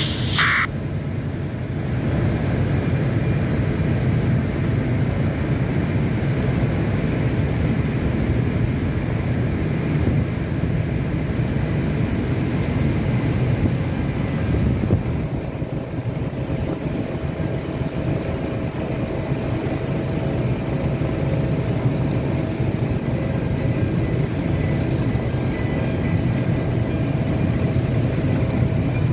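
Steady low diesel engine drone of a vessel underway, with a few faint constant hums above it.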